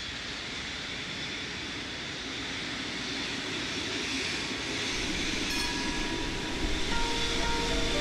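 Bergen Bybanen light rail tram (Stadler Variobahn) running on street track: a steady rolling noise with a high whine, growing louder, with more low rumble from about five seconds in. A few short tones at different pitches sound near the end.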